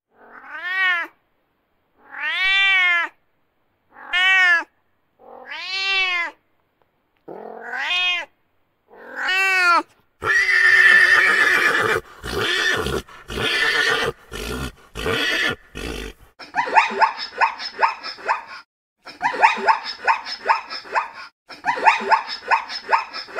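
Domestic cat meowing six times, each meow rising then falling in pitch. Then a pony whinnies for about six seconds in broken bursts, and from about 16 seconds zebra calls follow: bouts of rapid, pulsing barks.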